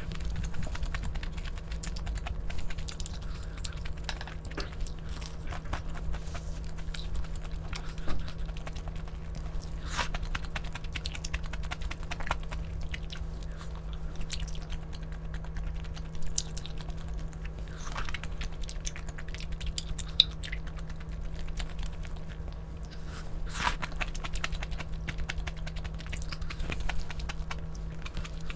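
Close-up eating sounds: a person chewing and biting food, with a few sharp clicks, over a steady low hum.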